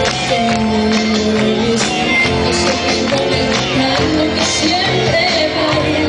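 Live pop-rock band playing with a woman singing lead over guitar and drums, recorded from among the audience.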